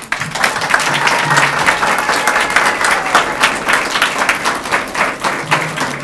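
Audience applauding: many people clapping densely and steadily.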